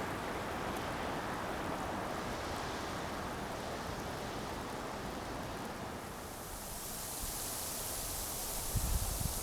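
Storm wind rushing steadily, turning to a higher hiss about six seconds in, with gusts buffeting the microphone near the end.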